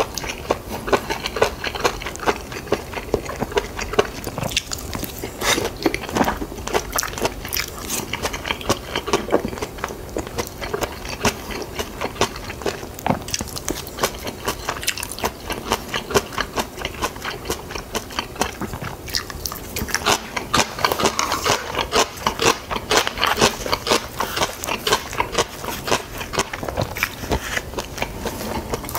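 A person chewing and biting mouthfuls of food close to the microphone: a steady run of quick wet clicks and smacks.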